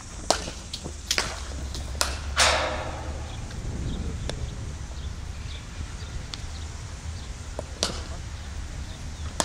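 Sharp knocks of cricket balls meeting bats in practice nets: a quick run of them in the first two and a half seconds, then one more near the end, over a low steady rumble.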